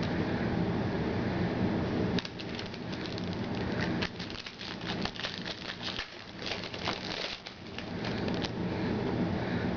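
Trading-card packs and cards being handled: a dense run of crinkling and rustling from about two seconds in until near the end, over a steady low hum.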